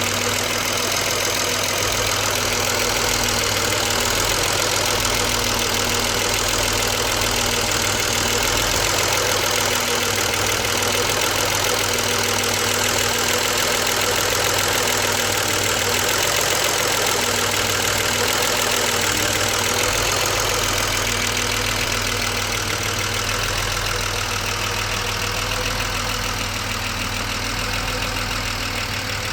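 BMW 635CSi E24's straight-six engine idling steadily, warmed up, with its air hose refitted to the throttle body; the owner judges that it now idles ok while he chases a rough-idle and idle-control-valve problem.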